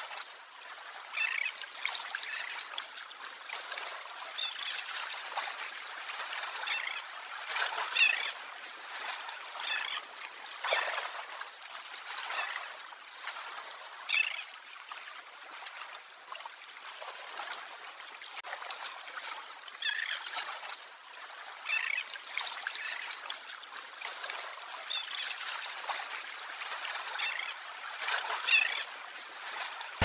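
Greater crested terns giving short, scattered calls over a steady hiss of sea surf, with a few louder surges of water.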